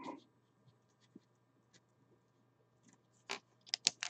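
Foil trading-card pack wrappers and cards being handled: a few faint clicks, then, about three seconds in, a quick run of crinkles and taps.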